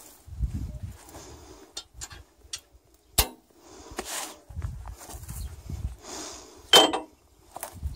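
Footsteps and rustling in dry grass around a tractor-mounted plough's hitch, broken by sharp knocks: one about three seconds in and a louder one near the end with a brief metallic ring.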